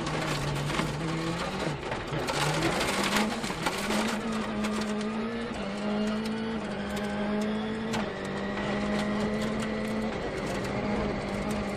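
Ford Fiesta RS WRC rally car's engine running hard at high revs on a gravel stage, its pitch holding high with small steps and dips every couple of seconds. Sharp clicks and knocks ride over it and are thickest in the first few seconds.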